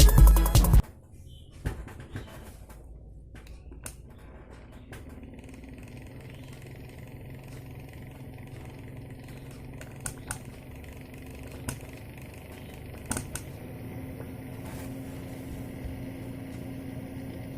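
Background music cuts off about a second in, leaving a homemade table fan's small DC motor running with a steady hum, with a few sharp clicks along the way.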